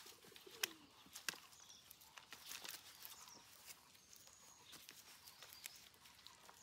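Quiet outdoor ambience: a low, falling bird call right at the start, two sharp clicks within the first second and a half, then scattered faint ticks and faint high bird chirps.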